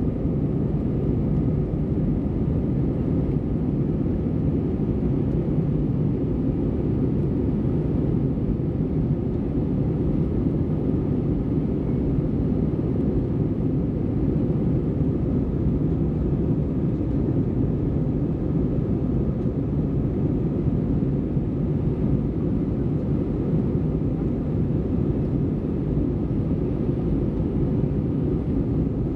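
Steady cabin noise of a jet airliner in flight, heard from inside the cabin: an even, low rumble of engines and airflow with a faint hum above it, unchanging throughout.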